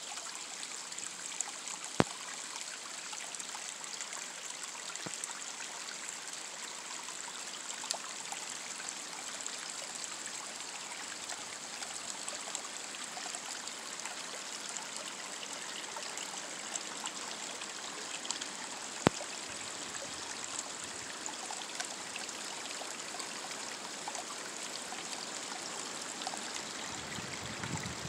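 Small stream running steadily over rocks, a constant trickling rush of shallow water. Two sharp clicks cut through it, one about two seconds in and one near nineteen seconds.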